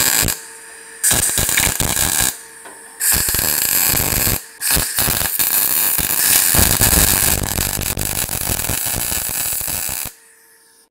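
MIG welding arc on thin sheet metal with 0.8 mm wire, crackling and buzzing in short stitch welds: a few runs of a second or so with brief pauses, then a longer run of about five seconds that stops about ten seconds in. The stitches are kept short to limit heat distortion of the panel.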